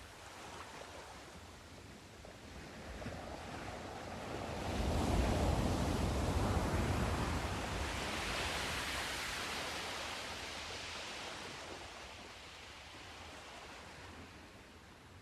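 Sea surf: a single wave builds, breaks with a low rumble about five seconds in, then its hissing wash rises in pitch and slowly fades away.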